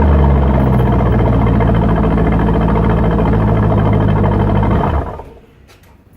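Chevrolet C5 Corvette's V8 engine running at a steady idle after a cold start, then shut off about five seconds in, its sound dying away quickly.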